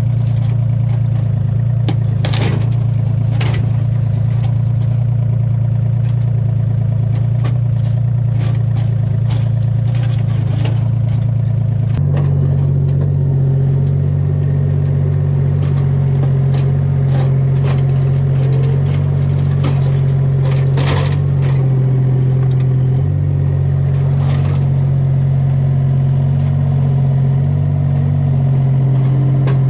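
Excavator's diesel engine running steadily, its note stepping up about twelve seconds in, with scattered knocks and clatter from the bucket breaking out cinder block and fill.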